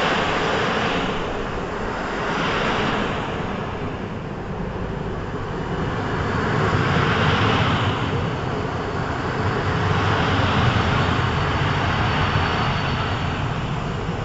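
PKP Intercity passenger coaches rolling slowly past on the rails: a steady low wheel-on-rail rumble under a rushing noise that swells and eases every few seconds, with a faint high whine through the middle.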